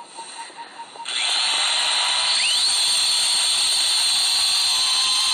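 A powered surgical bone saw starting up about a second in and running with a steady high-pitched whine, with a brief rise in pitch partway through.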